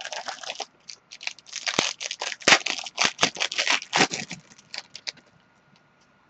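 Trading-card packaging and cards being handled: quick crinkling and rustling of wrapper and plastic, with small tearing and scraping sounds, for about five seconds before it trails off into a few faint ticks.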